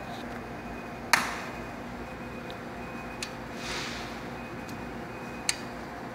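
Sharp clicks from the switch and controls of a medical light source unit as it is operated, over a steady faint hum: one loud click about a second in, a faint one past the middle and another near the end, with a brief soft rustle between them.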